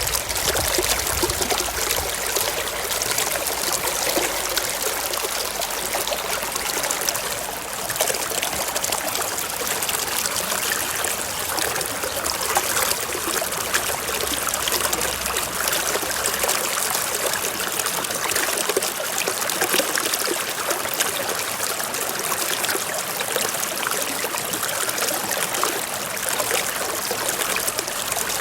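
Small stream trickling and splashing over rocks: a steady, even rush of running water.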